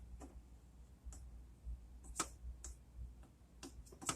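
Faint, irregular light clicks and ticks, a little under two a second, with no hiss of escaping steam.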